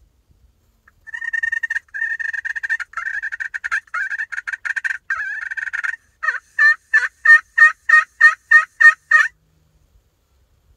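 A turkey call imitating a hen. First come about five seconds of rapid, rattling notes at one steady pitch, then a run of about ten loud, evenly spaced yelps, about three a second.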